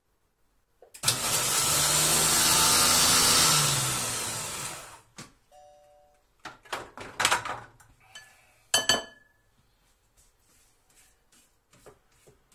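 Monsieur Cuisine Connect kitchen machine on its turbo pulse, chopping a shallot: the blade motor starts about a second in, runs at full speed for about three seconds, then spins down with falling pitch. A few clicks and a sharp, ringing metallic clank follow as the lid and stainless bowl are handled.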